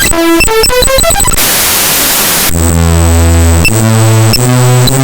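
Raw bytes of the Windows 10 resource file accessibilitycpl.dll.mun played as 32 kHz unsigned 8-bit audio. A run of quick buzzy tones steps in pitch, then about a second of loud hiss cuts in, followed by low buzzing drones that shift pitch every half second or so. A thin high whine runs through it all.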